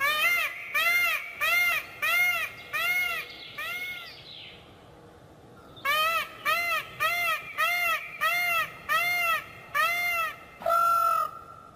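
Indian peafowl (peacock) calling: a run of short, loud honking calls, each rising and falling in pitch, repeated at about one and a half a second. After a pause of about a second and a half comes a second run of about eight, then one longer, level call near the end.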